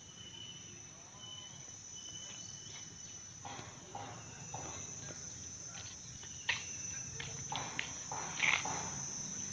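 Insects droning steadily on one high pitch, with a few short knocks and scuffs in the second half, the loudest about six and a half and eight and a half seconds in.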